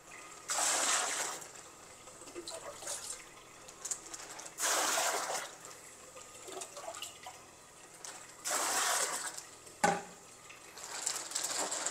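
Water splashing in three separate bursts of about a second each, roughly four seconds apart, with fainter trickling between them.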